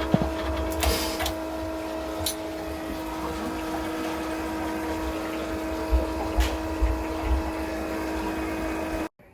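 A small electric pump running steadily with a hum and the sound of water, draining the old water heater's tank. It cuts off suddenly near the end.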